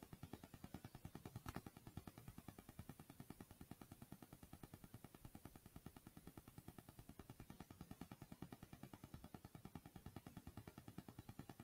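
Faint idling engine, an even rapid pulsing, with a single sharp click about a second and a half in.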